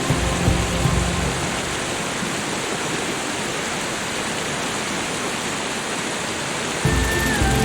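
Steady hiss of falling water, with soft music of low held notes fading out in the first second or so and coming back near the end.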